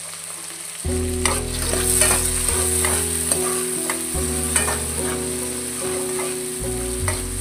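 Chopped tomato and onion frying in hot oil in a steel kadai, sizzling steadily, while a metal spoon stirs and scrapes the pan with irregular clicks and taps.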